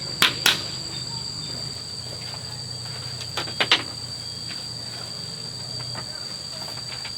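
Steady, high-pitched insect chirring, with a few sharp knocks near the start and again about three and a half seconds in.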